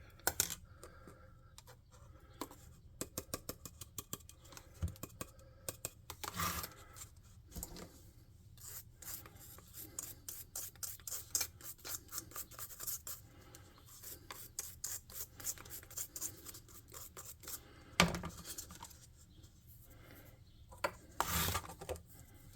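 Hands scraping, rubbing and clicking small craft pieces on a workbench: runs of quick small clicks and scratches, with a few louder brief scrapes.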